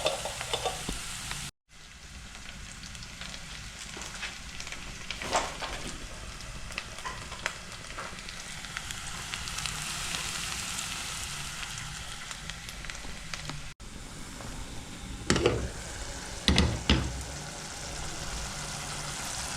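Onions frying in hot oil in a pot, a steady sizzle while they caramelise, broken by a few knocks of the stirring spoon, the loudest two near the end. The sound cuts out for an instant twice.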